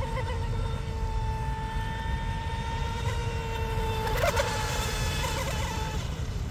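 Electric motor and propeller of a small RC mono hull speedboat whining steadily at speed, over a low rushing noise. About four seconds in the pitch wavers with a brief burst of hiss, and the whine dies away near the end.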